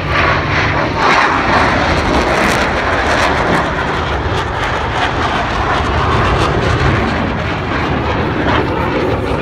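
Blue Angels F/A-18 Hornet jets flying past, their jet engines making a loud, steady roar.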